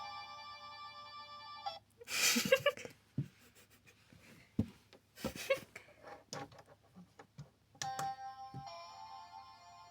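A small electronic sound toy from a gashapon capsule playing a beeping chip melody, which breaks off after about two seconds. A loud rustling burst and a series of clicks and knocks follow, and about eight seconds in the beeping melody starts again.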